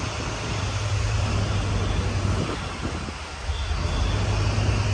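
Steady vehicle rumble: a low, even drone under a wash of outdoor noise, dipping briefly partway through.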